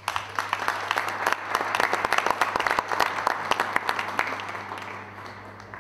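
Audience applauding: many hands clapping, dying away toward the end.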